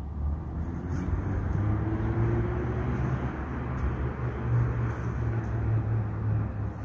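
Steady low rumble of road traffic, swelling after about a second as a vehicle goes by, with a faint rising engine tone early on.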